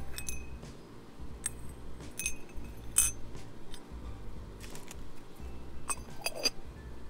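Ceramic spoon and lid of a small pumpkin-shaped ceramic sugar bowl clinking against the bowl, about seven light, separate clinks, the sharpest about three seconds in.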